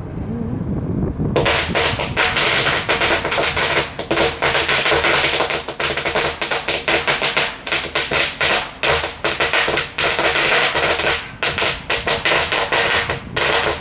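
Firecrackers going off in a fast, dense crackle of sharp bangs, starting about a second and a half in and running on with a few short breaks.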